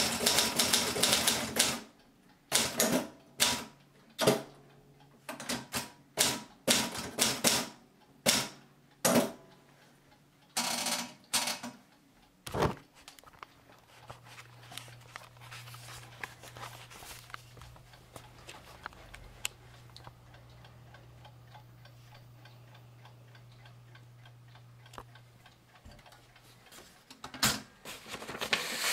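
1969 Adler Gabriele 25 portable typewriter being typed on: a quick run of keystrokes, then single key strikes every half second or so for about ten seconds. A long lull follows with only a faint low hum, and a few more strikes come near the end.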